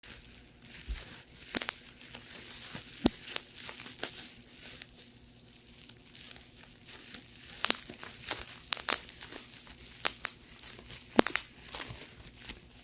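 Plastic bubble wrap being crinkled and squeezed, with irregular sharp pops as single bubbles burst, the loudest about three seconds in and again near the end.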